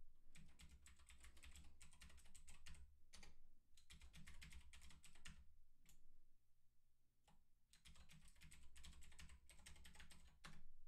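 Computer keyboard typing, faint, in quick runs of keystrokes with a pause of a couple of seconds around the middle and a few lone key presses.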